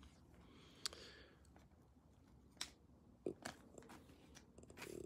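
Faint handling noise of fingers on trading cards lying on a playmat: a few soft clicks and light scrapes, the clearest about a second in and another few around the middle.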